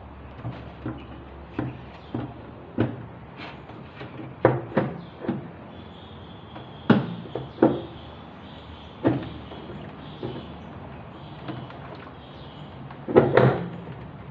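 Irregular knocks and clunks as a washing machine drum is handled and fitted into the machine, some in quick pairs, with the loudest cluster about 13 seconds in.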